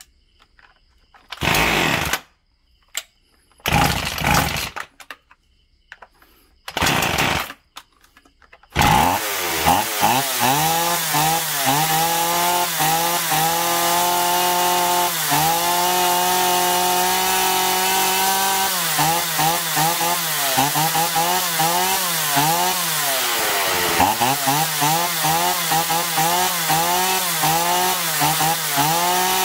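Small two-stroke chainsaw pull-started: three pulls of the starter cord that don't catch, then it fires on the fourth pull about nine seconds in. It then runs with the throttle blipped over and over, revs rising and falling. This is the test run after the carburetor was cleaned and both low and high mixture screws were set one and a half turns out from seated.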